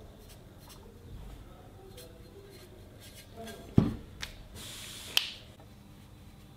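Workbench handling of a steel cylinder sleeve and a digital micrometer: scattered light clicks, one sharp knock a little past halfway as the sleeve is set down on the desk, then a short scraping rub ending in a click.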